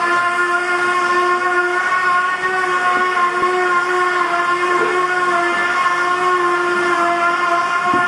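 Construction machinery making a loud, steady whine at one unchanging pitch, with a few faint knocks underneath.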